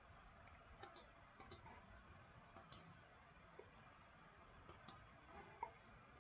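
Near silence broken by a handful of faint, short computer mouse clicks, spaced irregularly.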